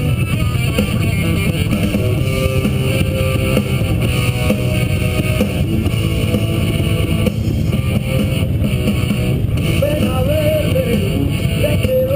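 Rock music with guitar and drums, over a steady low rumble from riding motorcycles.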